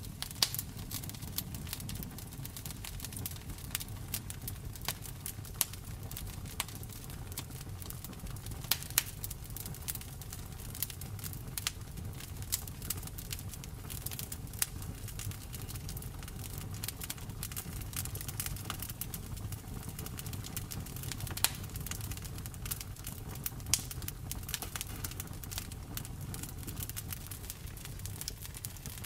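Wood bonfire crackling: a steady low rumble of flames under frequent small snaps and pops, with a few louder pops scattered through.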